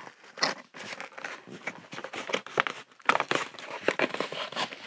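Packaging being opened by hand: irregular crinkling and rustling of paper and wrapping, with many short crackles that get busier about three seconds in.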